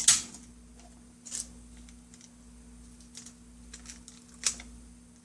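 Scattered light clicks and taps of hands handling Kapton tape and small laptop parts, with one sharper click right at the start and a few fainter ones after, over a faint steady hum.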